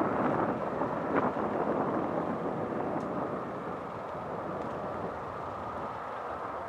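Jet airliner engines, a steady rushing noise that slowly fades.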